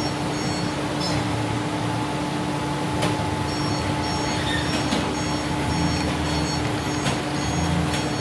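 Heavy machinery running steadily: a low engine rumble with a constant hum, faint high-pitched beeps repeating over it, and a few sharp clicks.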